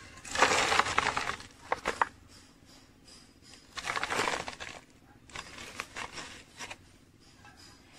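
Handfuls of loose soil dropped into a clear plastic bottle and packed down by hand, a rustling, crunching sound against the plastic. Three bursts: the first and loudest lasts about a second and a half, then two shorter ones around four and six seconds in.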